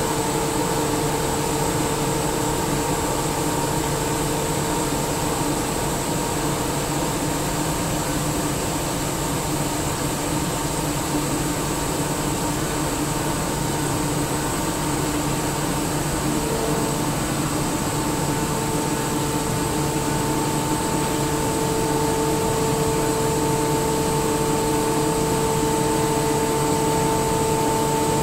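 SCR rotary screw air compressor running steadily inside its sound-attenuating cabinet: a constant hum with a steady whine over it, the whine growing stronger about two-thirds of the way through.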